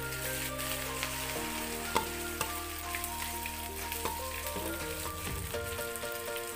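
Banana-blossom ukoy fritters sizzling steadily as they fry in shallow hot oil, with a few light clicks about two seconds in, over background music.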